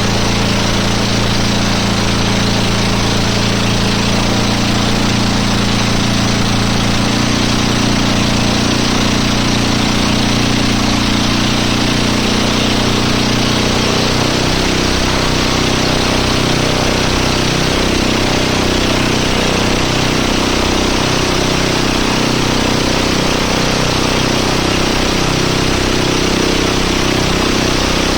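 Boat engine running steadily under a constant rushing noise; its pitch rises a little around ten seconds in and holds there.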